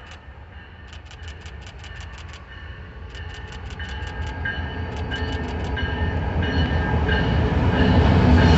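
Freight train led by BNSF diesel locomotives approaching, its engine and wheel rumble growing steadily louder as it nears. A warning bell clangs rapidly in short runs during the first half.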